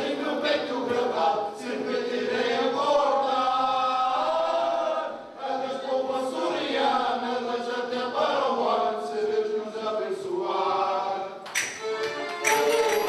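A group of voices singing together in chorus, in long held sung lines with a short break about five seconds in. Near the end the band strikes up at once, with guitars, accordion and brass.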